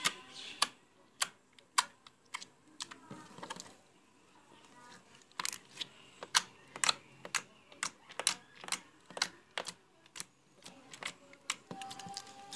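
Clear yellow slime squeezed and pressed by hand, its trapped air bubbles popping in sharp, irregular clicks, with a quieter stretch about two to five seconds in.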